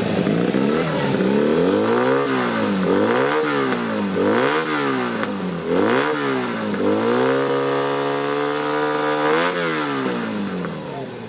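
Vintage Japanese motorcycle engine revved in four quick blips, then held at high revs for about two seconds before dropping back toward idle near the end.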